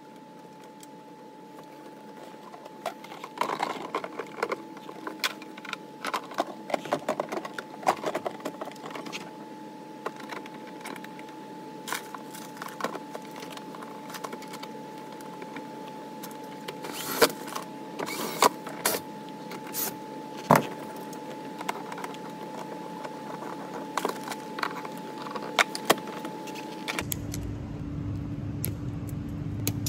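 Clicks, rattles and rustling of wiring and plastic dash trim being handled inside a truck cab, over a steady high tone. Near the end the sound changes suddenly to a low rumble with a lower steady hum.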